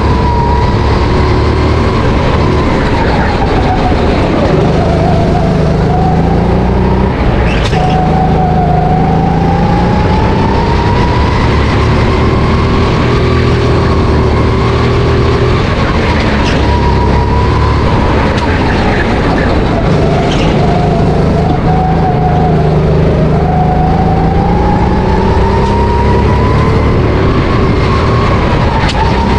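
Honda GX270 single-cylinder four-stroke engine of a SodiKart RT10 go-kart, heard from the driver's seat while lapping, its revs falling and climbing again several times as the kart slows and accelerates.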